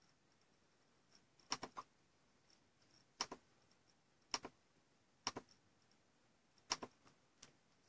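Sharp clicks at a computer, mostly in quick pairs or short clusters, every second or so.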